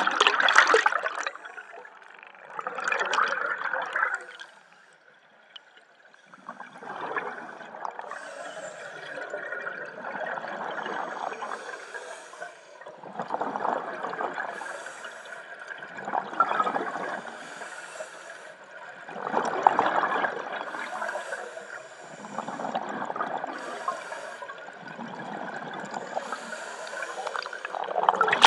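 Scuba diver's regulator underwater: exhaled air bubbling out in a gurgling burst every three to four seconds with each breath, the loudest bursts at the start and the end, and a short pause in the breathing about five seconds in.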